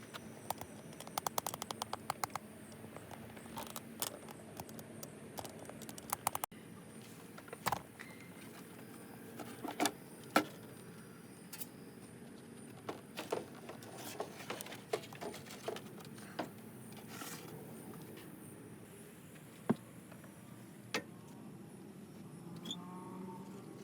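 Scattered sharp metallic clicks and clinks, as hand tools and parts are handled during radiator work on a car, with a quick run of rapid clicks about a second in.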